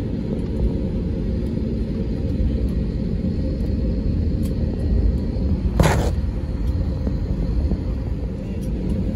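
Steady low rumble inside the cabin of an Airbus A320neo taxiing after landing. A short burst of noise stands out about six seconds in.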